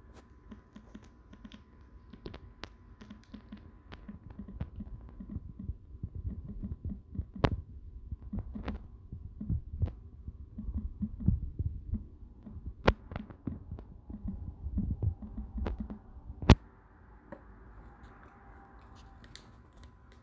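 Handling noise from a camera being held and adjusted: fingers rubbing and bumping close to the microphone give irregular low rumbling thuds, with a few sharp clicks, the loudest about sixteen seconds in.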